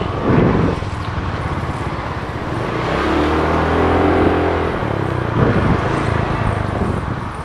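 Motorcycle engine running while riding, with wind noise over the microphone. A heavier engine note swells for a second or two about three seconds in.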